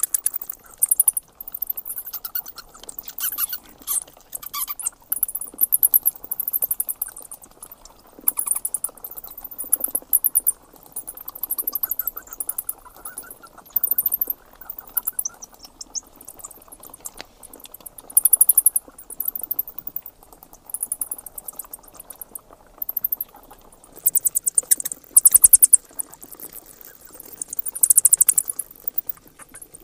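Bats chittering: bursts of rapid, high-pitched squeaky trills every second or two.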